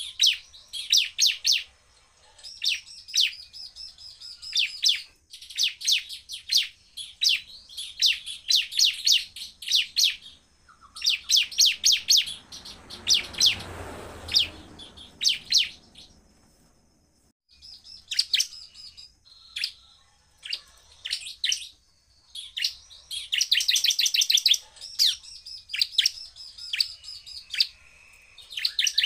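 Bar-winged prinia (ciblek) singing in rapid bursts of sharp, high chattering notes, each burst a second or two long with short pauses between. This is the very fast, full-power 'shooting' song that keepers play as a lure to set other prinias singing. A low rushing noise swells and fades around the middle.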